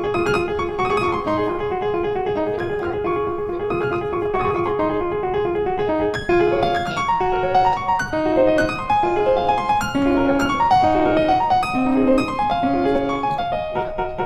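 Background music led by piano: a steady run of quick melodic notes over a repeating accompaniment.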